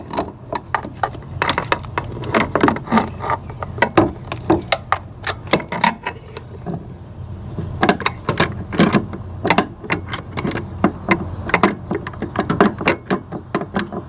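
Irregular light clicks and metallic clinks, several a second, of parts and tools being handled in a car's engine bay, over a low steady hum.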